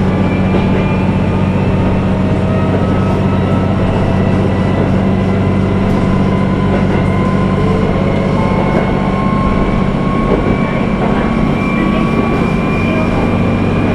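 Diesel engine of a JR KiHa 11 railcar idling steadily with the car at a standstill, heard from inside the passenger cabin.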